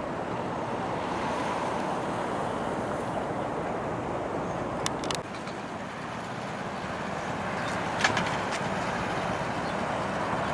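Steady outdoor background noise, an even rumble and hiss, with a few short sharp clicks; it dips slightly about halfway through.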